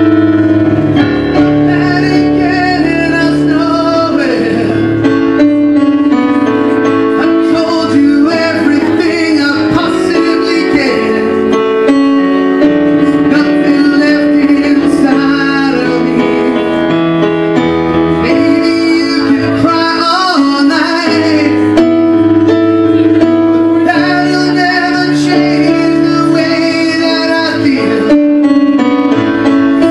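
A man singing into a handheld microphone with sustained, gliding notes, accompanied by keyboard chords played through the PA.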